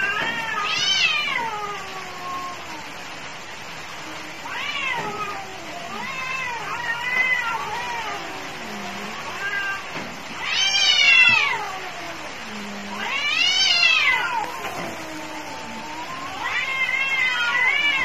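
Cats yowling at each other in a fighting standoff: long, wavering howls that rise and fall in pitch, about seven of them one after another with short gaps, some overlapping.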